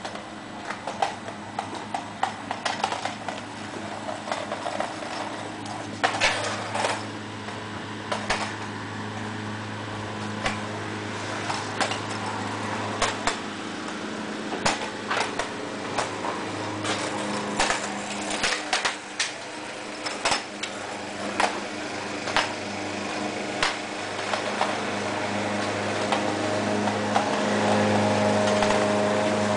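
Scooter wheels clicking and knocking irregularly on a concrete driveway, over a steady mechanical hum that grows louder near the end.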